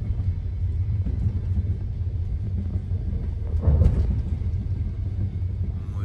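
Low, steady rumble of a moving passenger train heard from inside a compartment, with one louder thump a little past halfway through.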